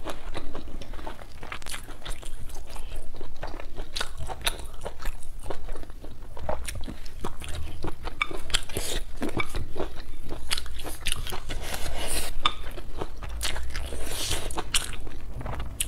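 Close-miked eating sounds: chewing and biting into spicy braised chicken and potatoes, a steady run of short crisp crunches and moist smacks, with a fresh bite taken later on.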